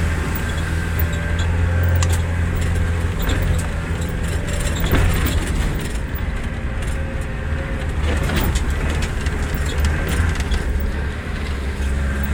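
Land Rover Perentie's diesel engine pulling hard under heavy throttle while wading through flood water, a steady loud low drone with scattered knocks.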